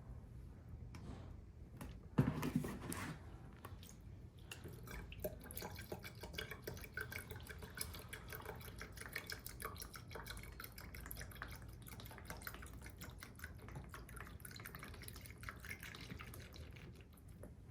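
Cleaning solution being poured into the tank of a Hoover portable spot cleaner: a faint, steady trickle and patter of liquid as the tank fills to the top. A short knock about two seconds in.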